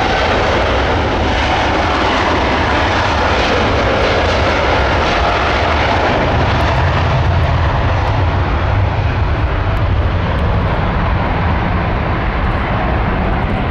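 GE GEnx-1B jet engines of an Air Canada Boeing 787-9 running as the airliner taxis and turns onto the runway: a loud, steady rush of jet noise whose low rumble grows stronger about halfway through.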